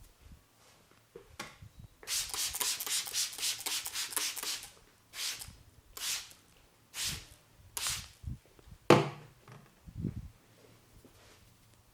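Hands rubbing vigorously through hair and over the scalp in an Indian head massage. First comes a run of rapid, scratchy strokes lasting a couple of seconds, then four or five separate strokes about a second apart, the last of them the loudest, and then a soft low thump.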